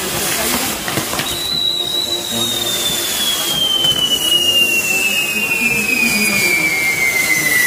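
Castillo pirotécnico fireworks tower burning, a steady hiss and crackle of spraying sparks. About a second in a long whistle sets in high and slowly falls in pitch without a break.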